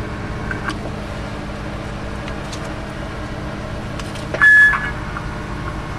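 A steady electrical hum from the radio bench setup, broken about four and a half seconds in by a short, loud burst of static carrying a steady beep tone, as from the CB radio as it is keyed or unkeyed.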